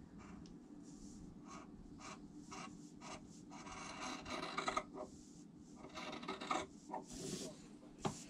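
Scissors cutting fabric: a run of short snips, then two longer cuts of about a second each, and a sharp click near the end.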